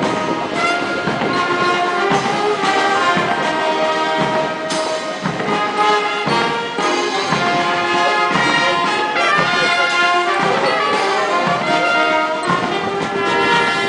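Military band playing a march, with brass instruments carrying the melody.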